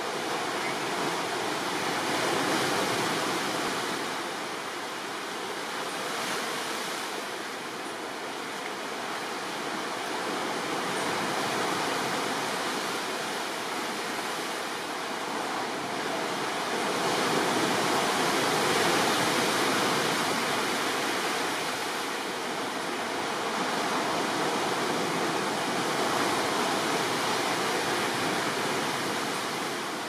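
Caribbean sea waves breaking on rocks and a sandy shore: a steady rush of surf that swells and eases with each set of waves.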